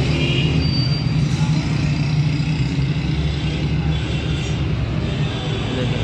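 Steady low rumble of motor-vehicle engines running, holding an even pitch throughout.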